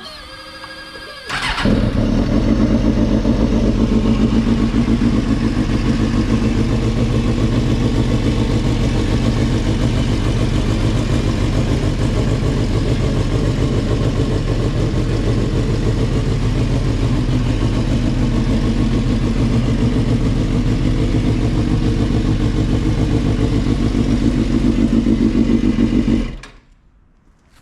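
A 2004 Suzuki GSX-R 750's inline-four engine catches about a second and a half in and runs at a steady idle for some 25 seconds, then cuts off suddenly near the end. The bike runs now after a crank-but-no-start fault, with fresh spark plugs and a new battery fitted.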